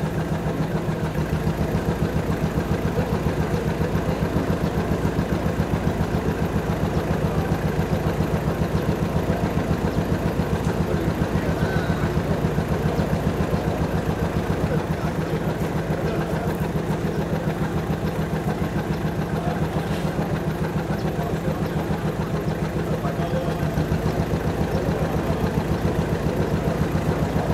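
A vehicle engine idling steadily with an even, low throb.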